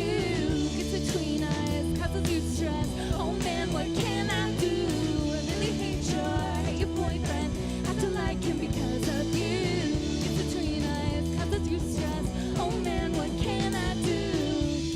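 A rock band playing live: singing over electric guitar, bass guitar and drum kit.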